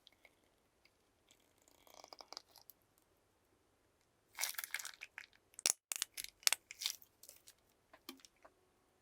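Plastic piping bags crinkling and crackling as they are handled: a soft crinkle about two seconds in, then a dense run of sharp crackles and clicks through the second half.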